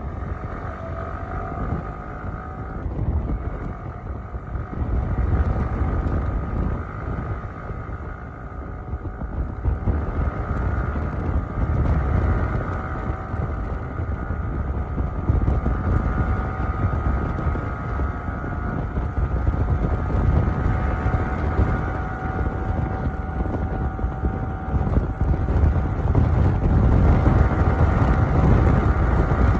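Yamaha sport motorcycle's engine running at highway cruising speed, its note holding steady and creeping slowly higher, under heavy wind rush on the microphone.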